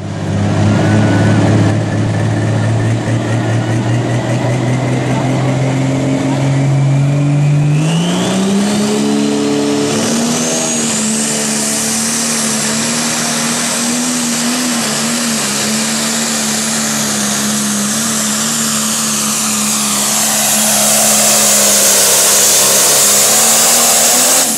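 Turbocharged diesel engine of a John Deere 6030 pro stock pulling tractor running hard. About eight seconds in the engine note steps up to full throttle under the load of the sled, and a high turbo whine climbs in pitch above it. The whine grows louder near the end.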